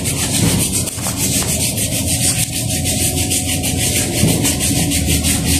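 Hand scrubbing of a Honda TMX 125 drum-brake part: quick, even rasping strokes, several a second, as the brake is rubbed clean.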